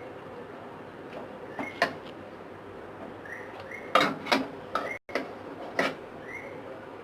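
Kitchen utensils clinking and knocking against pots and dishes, a handful of sharp strikes that cluster past the middle. Faint short rising chirps come in between.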